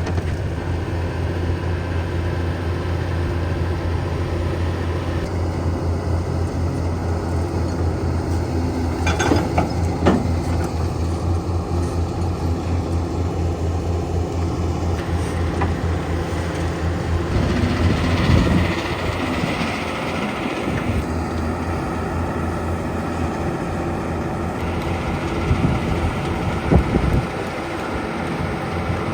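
A heavy machine's engine running steadily, with a few sharp knocks or clanks.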